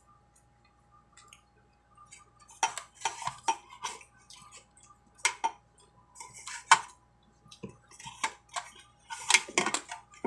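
Cutlery and dishes clinking and clattering during a meal, a string of irregular sharp clicks that starts a couple of seconds in.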